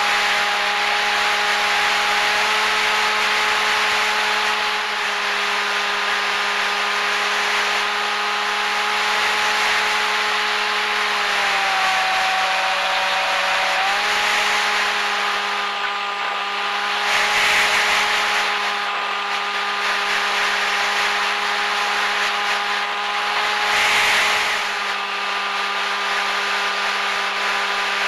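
Electric motor and propeller of a radio-controlled FPV aircraft, heard through its onboard action camera's microphone: a steady buzzing drone over rushing wind noise. The pitch dips for about two seconds near the middle and then comes back up, and the wind rush swells twice in the latter half.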